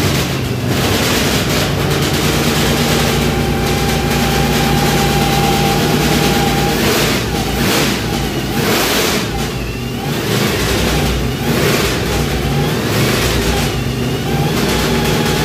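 383 stroker small-block Chevy V8 running cold just after starting, held at a steady fast idle at first, then blipped with several throttle revs from about halfway on.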